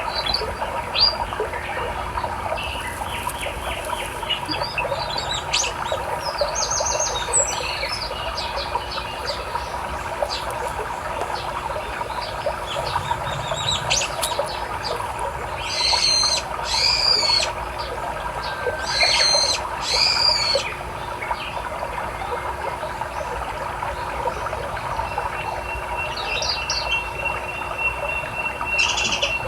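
Various birds chirping over the steady rush of a river. About halfway through come four louder calls in two pairs, and near the end a thin, steady high note is held for a few seconds.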